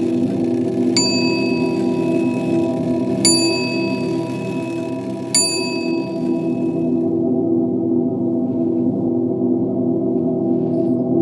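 Film score: a low, steady drone with three ringing bell-like strikes about two seconds apart in the first half.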